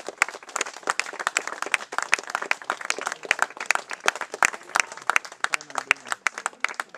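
A small group of people applauding, a dense run of irregular hand claps, with one person clapping close to the microphone.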